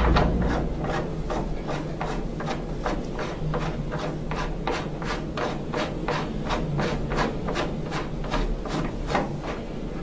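Intake coupling being tightened by hand into the side of a Rheem gas furnace's sheet-metal cabinet: an even run of short scraping clicks, about four a second.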